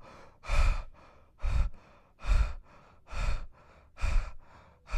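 A person breathing heavily in and out in a steady rhythm: about five louder breaths, roughly one a second, with softer breaths between them.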